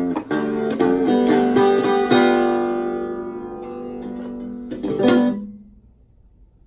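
Acoustic blues guitar played with a slide, closing out a song: a few notes, then a chord left ringing and slowly fading, and a last short strum about five seconds in that dies away.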